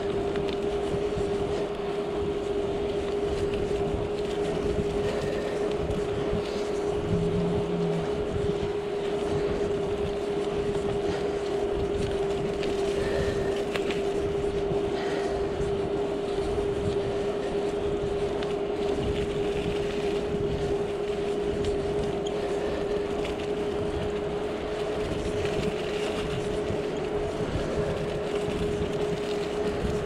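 Bicycle ridden along a paved path: steady tyre-rolling and wind noise, with an unbroken, even-pitched whine underneath.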